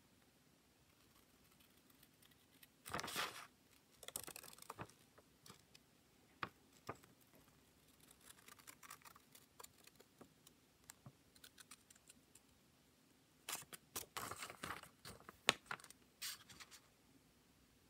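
Metal scissors cutting a printed paper sheet, with the sheet rustling as it is turned: quiet snips and scattered clicks, with louder spells of cutting about three to five seconds in and again near the end.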